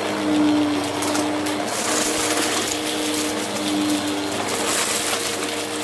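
Bissell CleanView upright vacuum running on carpet: a steady motor hum and rush of air, with light crunching and crackling as it sucks up small scattered debris.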